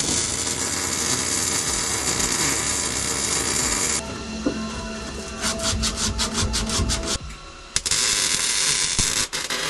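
MIG welding arc crackling and sizzling on the steel roll-cage tubing, heard in short stretches. It changes abruptly about four seconds in and dips briefly just after seven seconds.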